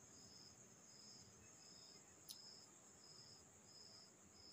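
Faint insect chirping: a regular high chirp repeating a little more often than once a second over a steady high hum, with one short click about two seconds in.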